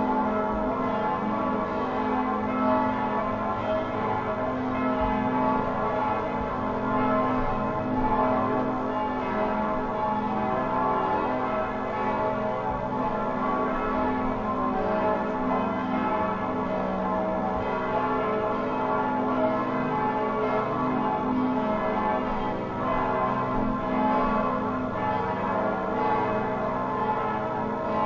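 Church bells ringing continuously, many bell tones overlapping in a steady peal.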